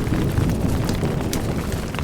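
Low, steady rumble of thunder under rain falling on a tent, with scattered sharp drop ticks.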